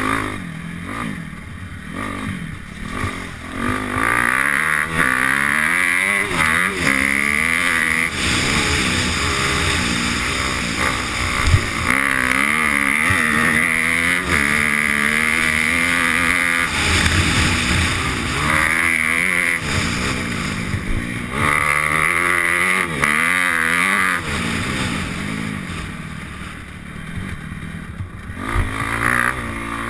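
Off-road motorcycle engine at race speed, revving up through the gears and dropping back again and again as the rider accelerates and backs off on a dirt track.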